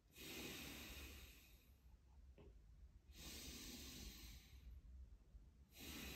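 Faint, slow, deep breaths of a chi gung exercise, each a soft hiss of about two seconds, three times roughly three seconds apart. A small click about two and a half seconds in.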